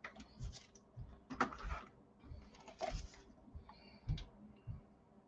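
Scattered soft clicks, taps and low knocks of things being handled on a tabletop, with a light rustle, a few sharper clicks about one and a half and three seconds in.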